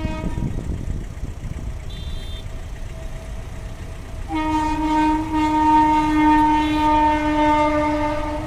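Indian Railways locomotive air horn: a brief note at the start, then one long steady blast from about four seconds in, over the low rumble of the passing train.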